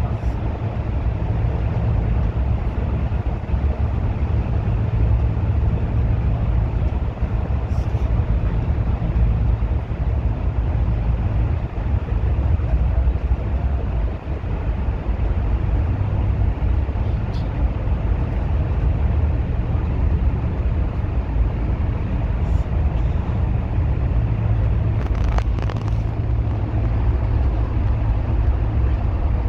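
Bus driving, a steady low engine and road rumble, with a few faint clicks.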